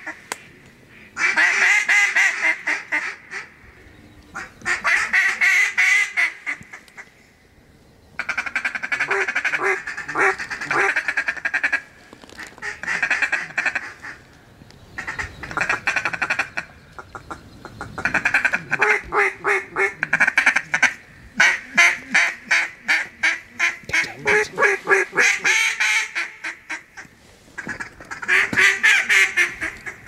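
Mallard-style duck calls blown hard in repeated runs of loud quacks and fast chuckling notes, sometimes overlapping, the hunters' calling to bring passing ducks in to the decoys.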